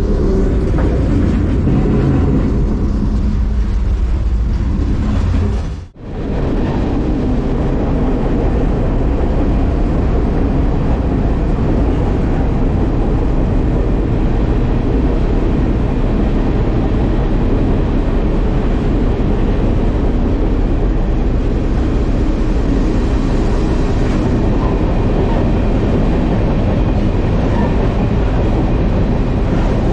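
Freight train rolling, a loud steady rumble and rattle of the cars on the rails. The sound cuts out briefly about six seconds in, then carries on.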